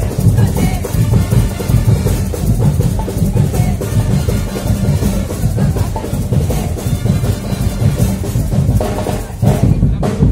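Loud carnival parade drumming: a dense, driving percussion rhythm that keeps up without a break.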